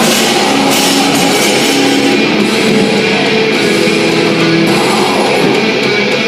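Heavy metal music with distorted electric guitar, playing steadily and loudly.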